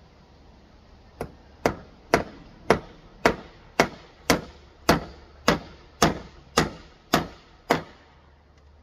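A hammer nailing down a wooden roof board: thirteen sharp, even strikes about two a second, the first one lighter. They begin about a second in and stop near the end.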